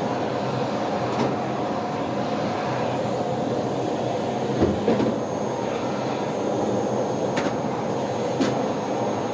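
Household vacuum cleaner running steadily, with a few short knocks.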